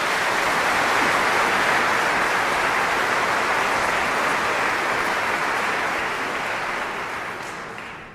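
Audience applauding: dense, even clapping that fades near the end.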